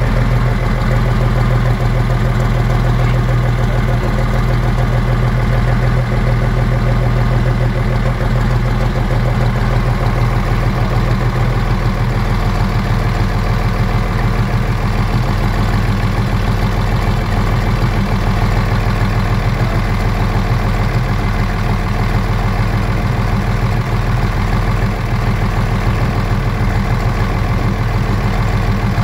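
V6 Cummins diesel engine in an International Harvester tractor idling steadily, running on its own after being crash-started.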